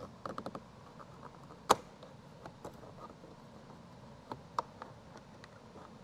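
A scatter of light plastic clicks and taps as a plastic trim tool pries the small cover out of a 2022 Toyota Tundra's door grab handle. The loudest is one sharp snap a little under two seconds in.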